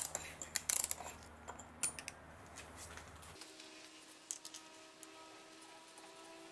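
Ratchet and filter socket clicking on a car's oil filter housing cap as it is loosened: a few scattered sharp clicks in the first two seconds, then quieter handling as the cap is turned by hand. A low hum cuts off about halfway through.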